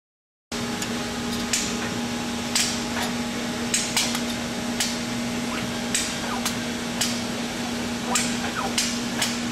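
Hard-disk media loading robot running: a steady machine hum under a string of sharp mechanical clicks and clacks, about one or two a second, as the end effector grips, flips and sets down the disks. A few brief falling whines come in the second half. The sound starts abruptly about half a second in.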